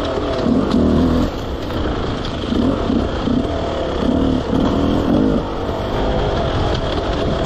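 Enduro dirt bike engine heard from on the bike, revving up and dropping back in irregular short surges as the throttle is opened and closed on the trail.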